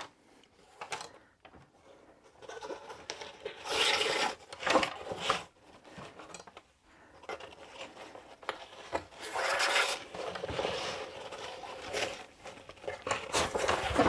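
Backpack fabric rubbing and rustling as elastic shock cord is pulled through the webbing loops on its front, in several irregular bursts of scraping.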